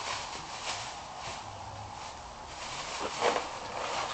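Clear plastic wrapping crinkling and rustling as it is handled, in irregular bursts, with the loudest crackle a little after three seconds in.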